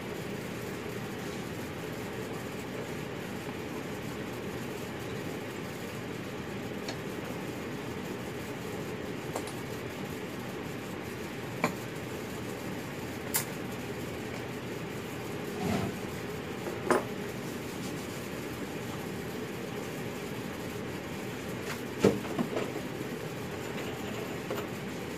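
Steady low hum, with a handful of short light clicks and knocks as a piece is handled and clamped in a metal bench vise; the loudest knock comes near the end.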